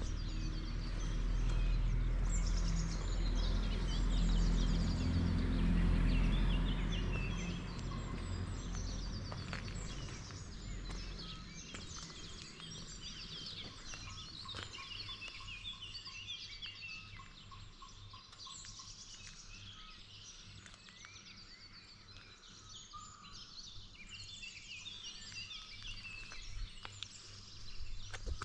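Many small birds chirping and singing at once, with a low rumble underneath that is loudest in the first few seconds and fades away by about ten seconds in.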